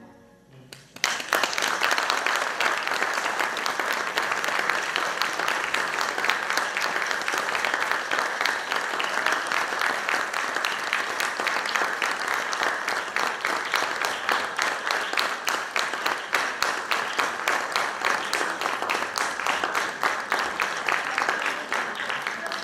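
Audience applauding: dense, steady clapping that starts about a second in and stops near the end.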